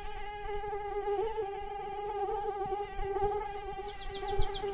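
Swarm of small flying insects humming: a steady, slightly wavering high whine. Near the end comes a quick run of about five faint high chirps.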